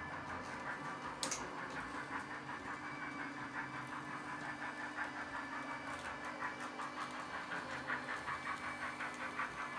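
Sound decoder of a Roco H0-scale model DB class 023 steam locomotive playing fast, even steam chuffing as the model runs, over a steady hum from the running model locomotives. One sharp click comes about a second in.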